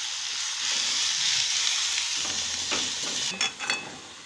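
Grated coconut sizzling in caramelised sugar in a metal pan as it is stirred with a spoon. The sizzle eases off near the end, with a few short knocks.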